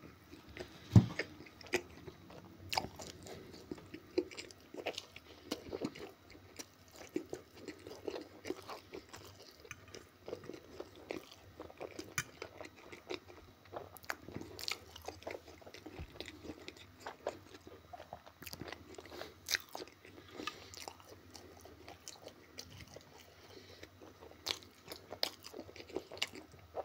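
A man chewing a big mouthful of cheese-topped pizza close to the microphone: steady wet chewing with many small clicks and smacks. A louder thump comes about a second in.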